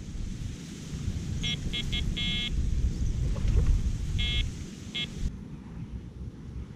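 Electronic fishing bite alarm giving six short beeps, one a little longer, over a steady rumble of wind on the microphone.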